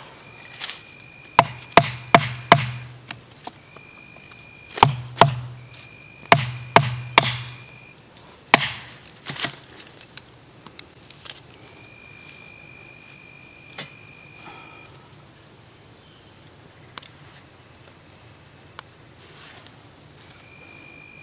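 A hatchet chopping and splitting small pieces of oak: a run of sharp wooden knocks in quick groups of three or four through the first half, then only a few light taps. An insect buzzes on and off behind it.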